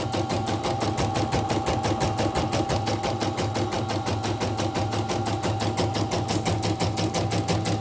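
CNY portable embroidery machine stitching, with a fast, even beat of needle strokes, several a second, over a steady motor whine. Its drive belt has been replaced to cure uneven belt tension that made it drag and knock, and it now runs evenly.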